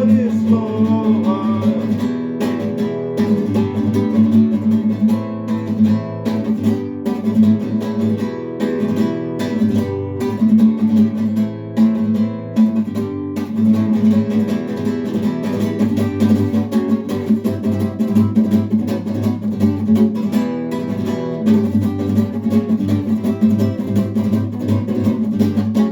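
Acoustic guitar strummed steadily as the song's instrumental ending, with the last sung words fading out in the first couple of seconds.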